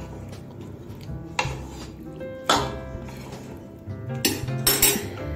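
A spatula knocking and scraping against a frying pan in several short clatters as fried chicken pieces are stirred into a thick creamy gravy, over background music with a steady bass line.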